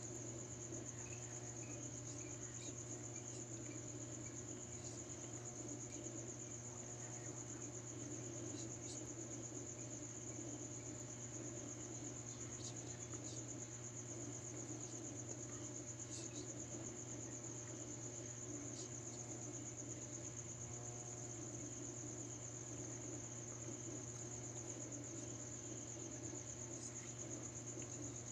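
Crickets trilling: one continuous high-pitched trill that never breaks, over a low steady hum.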